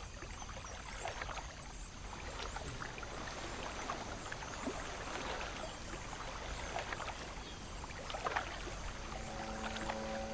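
Faint, steady trickling, rippling sound like running or lapping water, with many small irregular ticks. Soft sustained music chords come in near the end.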